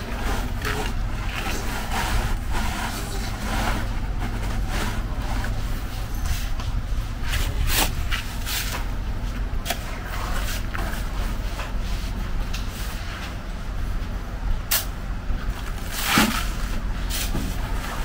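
Metal shovel scraping into sand and tipping it into a bucket, repeated irregular scrapes with a few sharper knocks, over a steady low rumble.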